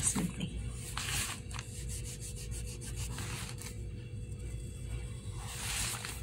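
Graphite pencil scratching on paper in a series of short strokes as leaf veins are drawn over and darkened, with a steady low hum underneath.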